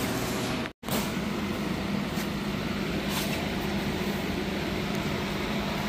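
Corvette V8 idling steadily through a Borla exhaust with its resonators deleted, a low, even exhaust note. The sound drops out completely for a moment a little under a second in.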